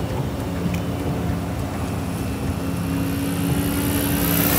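T-Rex 550 RC helicopter in flight overhead: a steady, distant hum of motor and rotor, growing louder near the end with a rising hiss as it comes closer.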